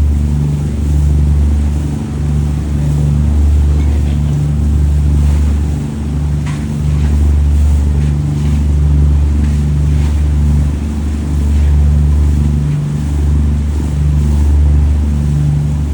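Motorboat engine running under way with a steady, deep drone, its level rising and falling slightly, over a hiss of wind and water.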